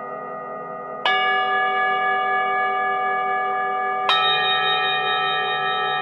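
Singing bowls ringing: tones carry over from earlier strikes, then a bowl is struck about a second in and another about four seconds in, each adding its own long, steady ring to the rest.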